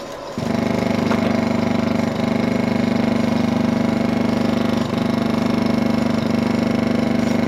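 Loud, steady low buzzing drone with a fast, even flutter, from a 16mm film's optical soundtrack played through the projector. It starts abruptly just under half a second in.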